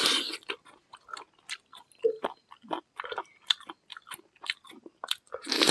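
Close-up chewing and mouth smacking of people eating rice and chicken curry by hand: a quick run of short smacks and clicks, with two longer, louder hissing sounds at the start and near the end.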